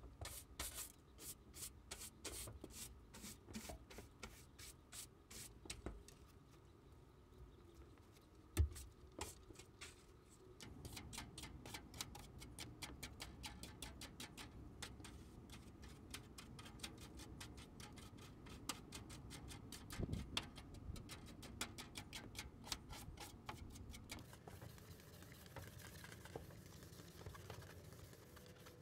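A broom and brush scraping and sweeping over a bare ribbed steel van floor, a run of short scratchy strokes that come thicker after about ten seconds. A sharp thump about nine seconds in and a smaller one near twenty seconds stand out.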